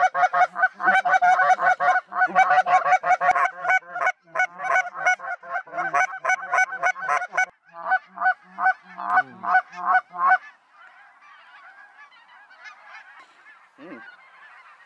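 Loud, rapid goose honks, several a second, for about the first ten seconds, then only a faint, blurred chorus of many snow geese.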